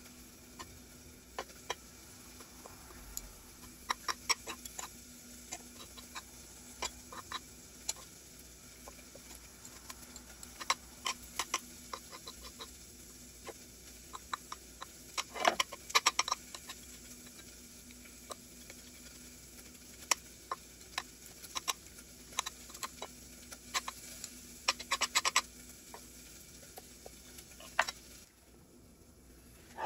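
Scattered sharp clicks and light taps, some in quick little clusters, over a faint steady hum that drops away near the end.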